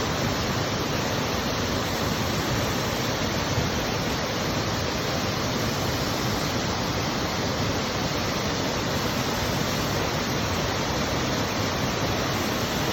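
A waterfall's steady rushing.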